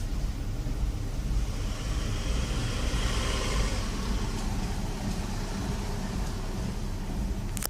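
2011 Toyota Prius's 1.8-litre four-cylinder petrol engine running with a steady low rumble, recorded for a misfire. The sound cuts off abruptly at the very end.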